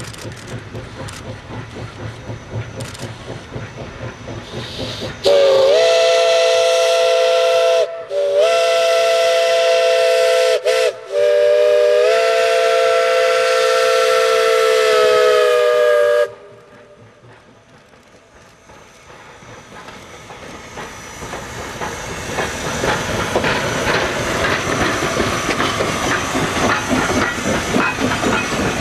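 A narrow-gauge Baldwin Mikado steam locomotive sounds its multi-tone steam whistle for the grade crossing: two long blasts, a short and a long, starting about five seconds in. After a short lull, the clickety-clack of the train's wheels rattling over the rail joints grows louder as the empty hopper cars roll past.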